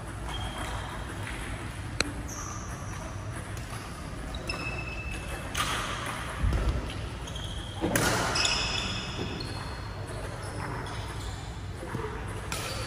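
Badminton rally on an indoor court: a sharp crack of a racket striking the shuttlecock about two seconds in, sneakers squeaking briefly on the court floor many times over, and a dull thud midway.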